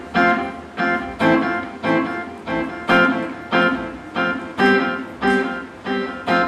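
Guitar playing a steady pattern of picked chords, one roughly every half second, each ringing out and fading before the next.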